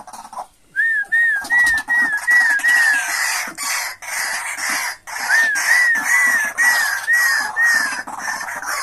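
White-breasted waterhen calling: two runs of repeated whistled notes, each rising then falling, about two or three a second. Harsh rasping croaks run between and under them.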